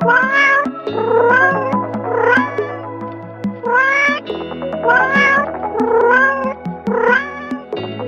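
Domestic cat meowing over and over, about one meow a second, each rising in pitch, over background music with held low notes and a steady pulse.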